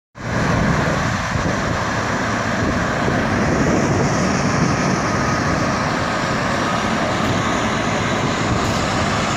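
Turkish Airlines widebody jet's engines running at the runway end, a loud, steady roar with no change in pitch.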